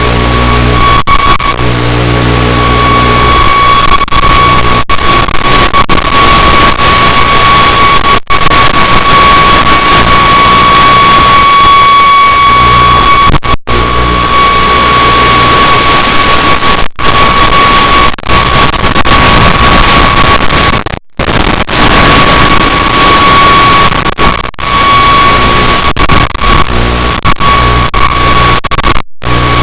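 Loud, steady hiss of analog FPV video-link static with a steady high whine running through it, cut by brief total dropouts about half a dozen times.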